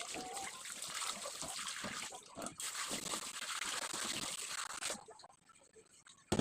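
Running water splashing, with a brief dip about two and a half seconds in, stopping about five seconds in. A single sharp knock near the end.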